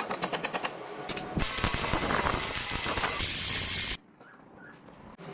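Rapid clicking, then a hissing spray noise that grows to a loud, high hiss and cuts off suddenly about four seconds in.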